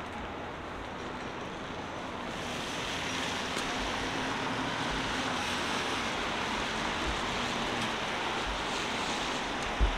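Downtown street traffic noise, a steady roar that grows louder about two and a half seconds in, with a low thump near the end.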